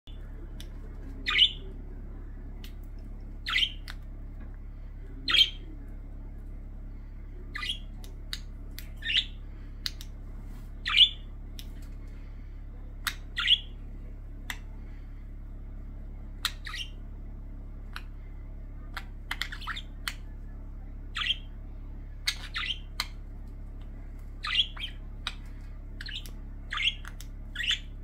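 Budgerigars giving short, sharp chirping squawks, one every second or two and sometimes two in quick succession: excited calls from pet budgies greeting their returning owner.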